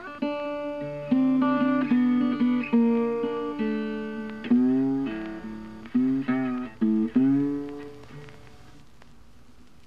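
Guitar music: a short phrase of plucked notes, each ringing and decaying, a few bending in pitch, that stops about eight seconds in.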